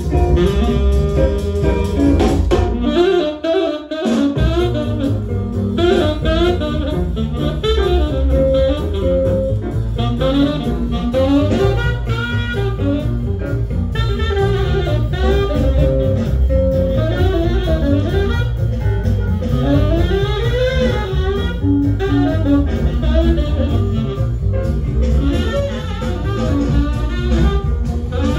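Jazz tenor saxophone with rhythm section, played from a vinyl LP on a Lenco L75 turntable, with a brief dip in the bass about three seconds in.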